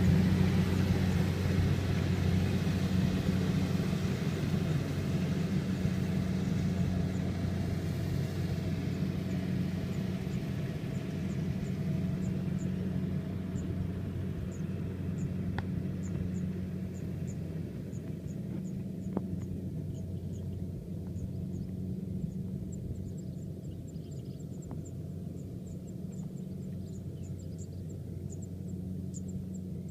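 Kubota rice combine harvester's diesel engine running in a steady low drone, slowly fading as the machine moves away. Faint high chirps come in over the second half.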